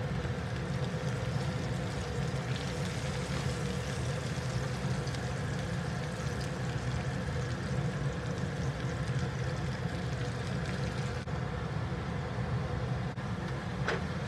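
Sliced onions, cashews and garlic sizzling steadily in hot mustard oil and ghee in a pan as they are stirred, over a steady low hum. A single click near the end.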